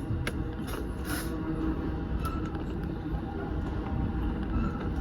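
Electric commuter train running, heard from inside the front car: a steady low rumble with a few light clicks and rattles in the first couple of seconds.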